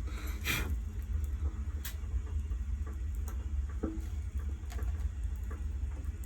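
Gas water heater's burner firing, a steady low rumble, with scattered small clicks and handling rustles and a short rush of noise right at the start.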